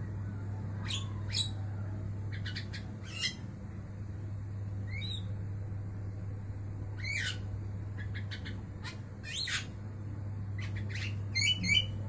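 Caged Javan myna giving scattered short squawks and whistled calls, some sliding in pitch, with a quick run of repeated notes near the end. A steady low hum runs underneath.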